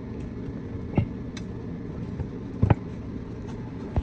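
Steady low mechanical hum with three sharp knocks or clicks about a second and a half apart, the loudest a little past the middle.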